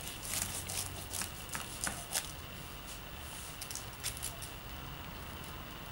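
Knife and fork cutting through the crunchy breadcrumb crust of a filled chicken breast: a run of small crackly clicks for the first two seconds or so, then a few more about four seconds in.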